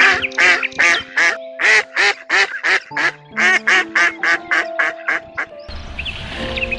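Ducks quacking in a rapid run, about three quacks a second, over background music with held tones. The quacking stops near the end, when an outdoor hiss and short rising bird chirps begin.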